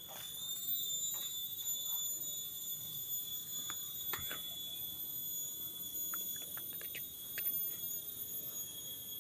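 A steady, high-pitched tone of unknown source that starts abruptly and holds without a break, with faint scattered clicks and short chirps behind it.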